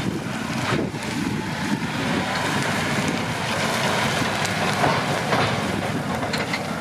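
John Deere 6215R tractor working with a Heath superchaser bale chaser: steady engine and machinery noise with rattling and a few sharp knocks from the chaser.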